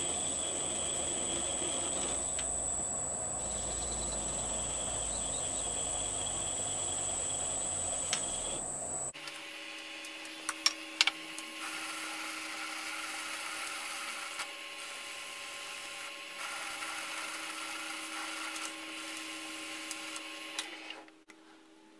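Metal lathe running at a slow spindle speed while a boring bar cuts a bore in an aluminium plate clamped to the faceplate, giving a steady mechanical running sound. About nine seconds in, the sound changes abruptly to quieter running, with a few sharp clicks shortly after.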